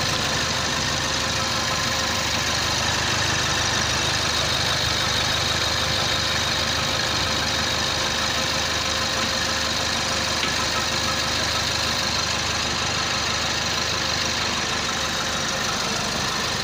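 Toyota 1KD-FTV 3.0-litre four-cylinder turbo-diesel idling steadily, running after its overhaul.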